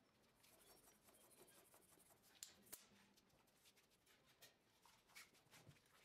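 Near silence with faint hand-handling noise on a bicycle in a repair stand: light rubbing and a few scattered sharp clicks.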